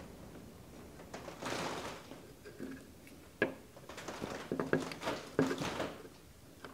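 Quiet scraping and handling of a utility knife blade working at a rubbery window glazing strip, scoring it for a 45-degree corner cut, with a sharp click about three and a half seconds in.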